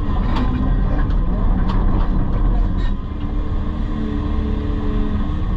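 Excavator's diesel engine running steadily under work, with a steady tone joining about halfway and a few sharp knocks.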